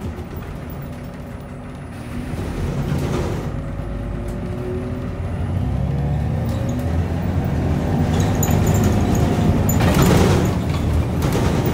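Irisbus Citelis 18 articulated city bus heard from inside the cabin, its engine running under load and getting louder as it gathers speed, with a faint rising whine from the driveline. A short hiss sounds about ten seconds in.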